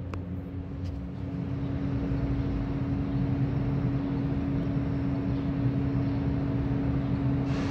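Diesel engine of a Neoplan Transliner AN440A transit bus running, a steady low rumble with a constant hum that grows gradually louder as the bus draws closer.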